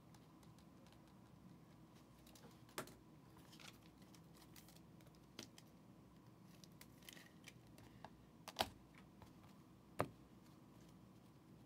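Near silence broken by about half a dozen soft, irregular clicks and taps, the loudest a quick double tap a little past the middle.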